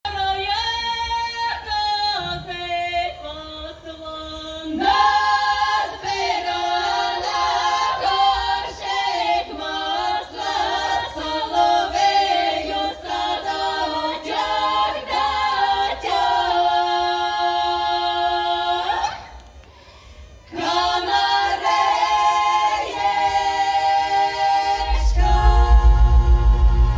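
A women's folk vocal group singing a cappella in harmony, with a short break about two-thirds of the way through. Near the end a low, pulsing bass sound comes in under the voices.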